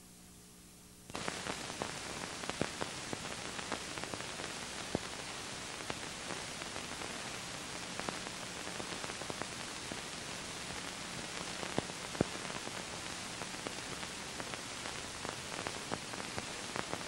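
A faint low hum, then, about a second in, an abrupt switch to a steady hiss with scattered crackles and pops: the surface noise of an old optical film soundtrack running without programme sound.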